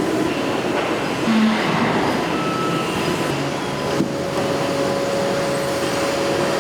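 Factory machinery on a bearing-ring forging line running with a steady mechanical din. A short low hum comes about a second in, a sharp knock about four seconds in, and a thin steady whine holds from about halfway to the end.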